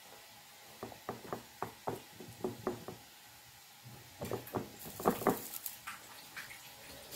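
Hands patting and pressing a potato-stuffed paratha dough round in a tin of dry flour: a run of soft slaps and taps, then a louder, quicker flurry of slaps with flour rustle about four seconds in.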